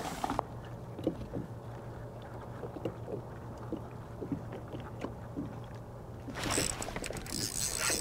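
Fishing gear being handled aboard a kayak: faint scattered knocks and taps over a low steady hum. About six and a half seconds in, a louder run of clicking and rattling begins.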